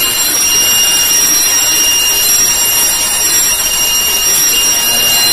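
Hair dryer running steadily, blowing hot air onto a rate-of-rise heat detector to set it off. A high-pitched tone sounds over it in pulses about a second long.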